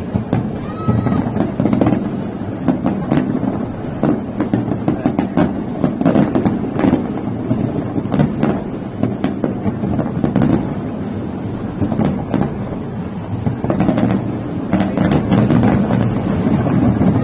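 Fireworks display: aerial shells bursting in quick, irregular succession, a steady run of sharp bangs over a continuous rumble.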